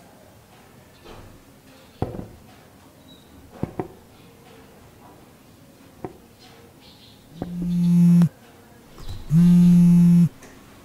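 A few light knocks, then a mobile phone vibrating twice: two loud, steady low buzzes, each a little under a second long, an incoming call.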